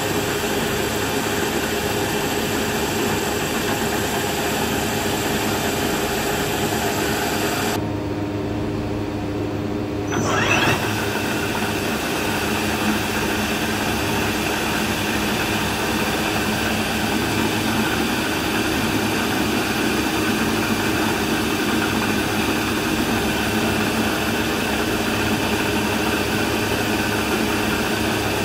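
CNC machining centre running with its horizontal spindle turning a 6 mm end mill: a steady machine hum with several held tones. The hiss drops away for a couple of seconds about eight seconds in, and a brief rising whine comes about ten seconds in.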